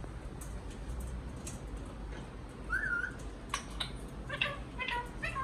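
Ringneck parrot calling: one short whistled note about halfway through, then a few sharp clicks and a quick run of short chirping calls near the end.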